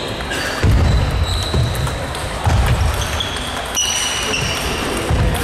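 Table tennis players' feet thudding heavily on a wooden sports-hall floor, about four times, as they move around the table. Short high sneaker squeaks and light clicks of the ball come in between.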